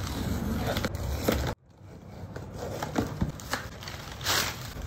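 A cardboard box being opened by hand: packing tape scraped and pulled off, flaps forced open, and crumpled packing paper rustling as it is pulled out. The sound drops out abruptly for a moment about a second and a half in.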